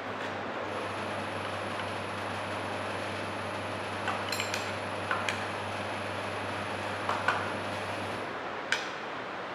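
Light metal clinks and taps as the steel rings of a consolidometer (oedometer) cell are fitted together and fixed, a few at a time about four, five and seven seconds in and one near the end, over a steady low hum and hiss.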